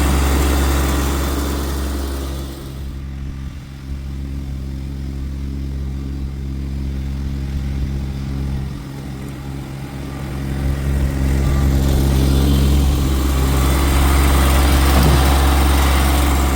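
Diesel tractor engine running steadily. It drops in level after a couple of seconds and gets louder again about ten seconds in.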